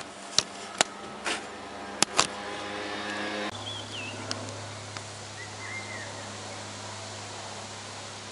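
Light propeller plane's engine droning overhead, a Cessna by the video's account. A few sharp handling knocks come first as the engine note grows louder, then the sound changes abruptly to a steady low drone with a couple of short bird chirps.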